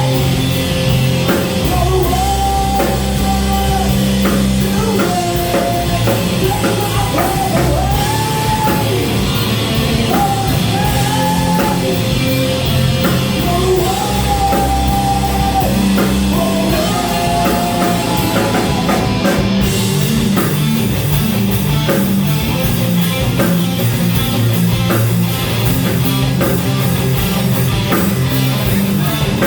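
Live rock band playing, with drum kit, bass and electric guitar; a sung vocal line for about the first half, then the band plays on without vocals.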